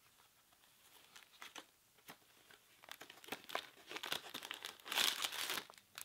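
Plastic insole packaging crinkling and rustling as it is handled and opened. A few faint crackles at first, then denser crinkling from about three seconds in, loudest around five seconds.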